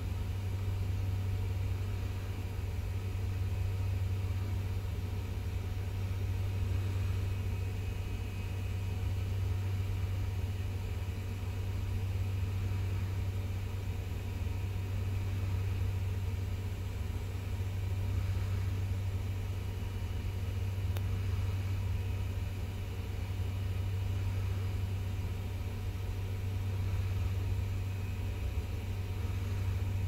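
Steady low machinery rumble and hum, even and unchanging throughout, strongest in a deep hum.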